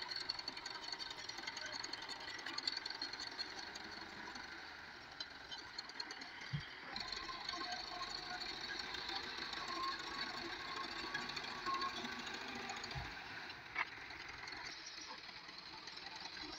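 Belarus MTZ-50 tractor's four-cylinder diesel engine running with a fast, even clatter while the tractor pushes dirt with its front blade.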